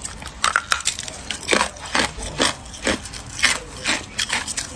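Ice being bitten and chewed: a run of sharp, irregular crunches, a few a second, as the ice cracks and splinters between the teeth.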